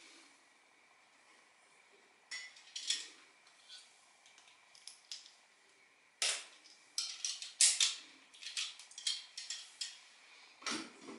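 Scattered clicks, taps and rattles of small objects being handled in a bathroom cabinet while a replacement razor blade cartridge is looked for. A few clicks come about two seconds in, then a dense run of clatter from about six seconds, and a louder knock near the end.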